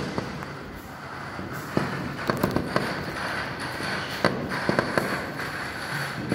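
Fireworks going off in the distance: scattered sharp cracks and pops at an irregular pace, coming more often from about two seconds in.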